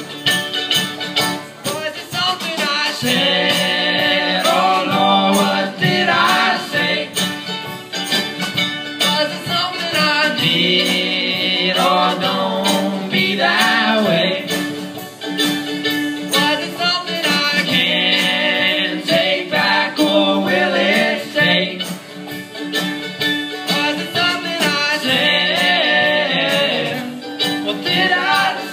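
Live string band playing banjo, acoustic guitar and mandolin over a drum kit, with two voices singing together in phrases of a few seconds separated by short instrumental gaps.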